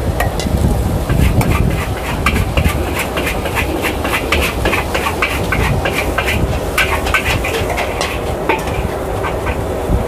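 Large steel wok of Chinese kale and pork simmering in broth over a gas burner: a steady low roar under rapid clicks and scrapes of a metal spatula working in the wok.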